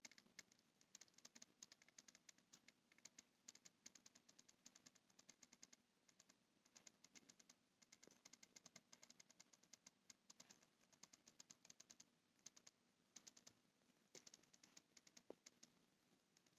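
Canon EF-M 28mm f/3.5 Macro IS STM lens clicking faintly while continuous autofocus hunts: rapid, sharp clicks in irregular runs broken by short pauses. The owner cannot tell whether this clicking is a defect.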